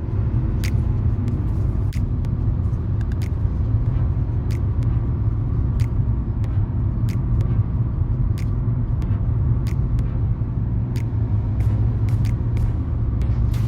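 A car driving, with a steady low rumble of engine and road noise and sharp ticks now and then.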